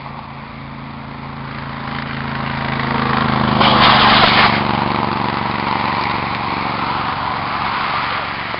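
Steady engine hum with a car passing close by, and a loud rushing burst lasting about a second, some three and a half seconds in, as the rocket's motor fires at liftoff.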